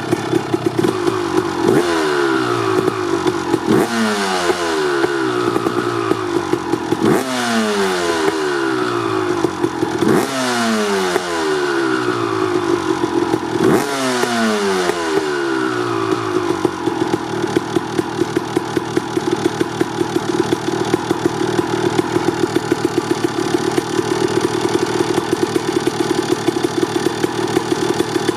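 1989 Honda CR250R 250cc two-stroke dirt bike engine with an FMF Gnarly pipe, idling and blipped five times in the first half. Each rev jumps up sharply and falls back to idle. It then settles into a steady, crisp two-stroke idle.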